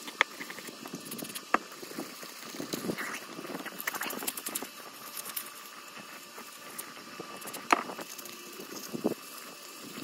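600-grit sandpaper rubbed in circles around a metal brake caliper piston to take off rust, an irregular scratchy rasping broken by a few sharp clicks from handling the piston and paper, the loudest about three-quarters of the way through.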